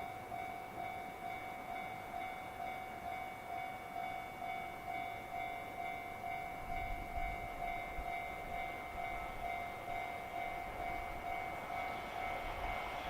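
Japanese level crossing's warning bell ringing in an even repeating pattern, signalling that a train is approaching. A low rumble comes in about halfway through and grows toward the end as the freight train nears.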